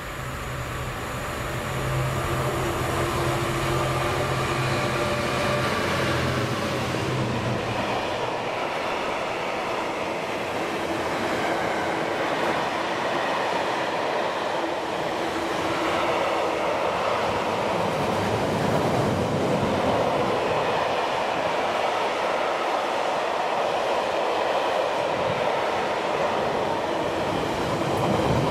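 Freightliner Class 66 diesel locomotive approaching and passing with its two-stroke engine droning steadily, the note fading about eight seconds in. After that comes the continuous rolling noise of a long container train's wagons running past at speed.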